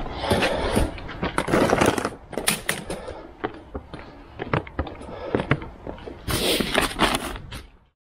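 Folding wagon cart loaded with grocery boxes rolling over concrete, its wheels and frame rattling and clattering with many sharp knocks. The noise cuts off suddenly near the end.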